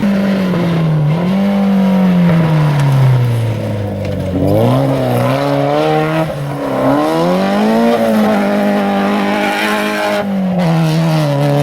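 Rally car engine running hard on a gravel stage, the revs falling away, then climbing again through several gear changes, with a brief lift off the throttle about ten seconds in.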